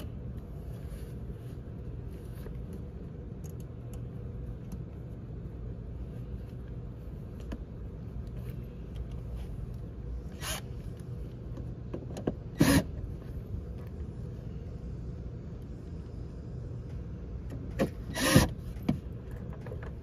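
A cordless drill/driver running in a few brief bursts as it works the screws of a coach door hinge, the longest burst near the end, over a steady low hum.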